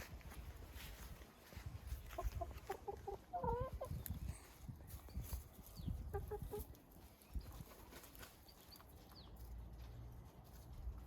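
Domestic chickens clucking: a quick run of short clucks with a rising and falling call about two to four seconds in, and a few more clucks around six seconds, over a low rumble.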